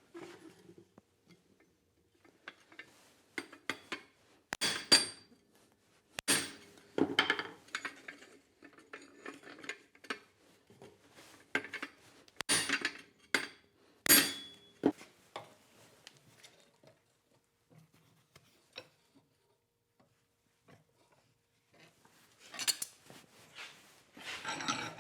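Metal-on-metal strikes and clanks on steel at the forge, each with a brief bright ring, coming in irregular clusters with quiet gaps between them.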